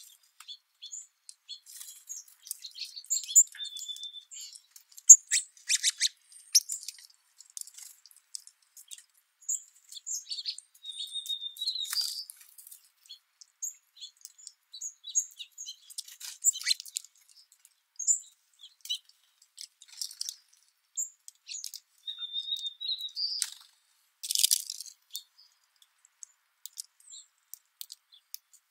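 Small songbirds chirping in short, scattered high calls, a few held as thin whistles of about half a second. Sharp clicks and brief rustling bursts are mixed in among the calls, and some of these clicks are the loudest sounds.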